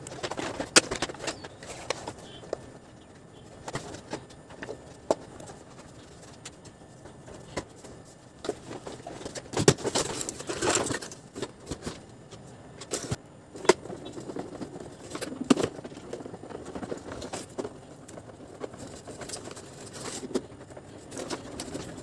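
Plastic shell of a canister vacuum cleaner being handled and fitted back together: scattered clicks and knocks of the plastic casing and tools, several in a cluster about halfway through.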